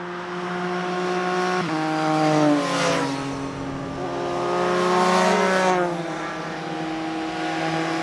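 Motorcycles riding by with their engines running, the engine pitch rising and falling several times as they accelerate and ease off.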